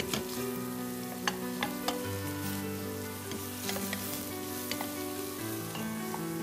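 Food sizzling as it fries in stainless steel pots and is stirred with wooden spoons, with a few sharp knocks of a spoon against a pot in the first two seconds. Soft background music with held notes plays underneath.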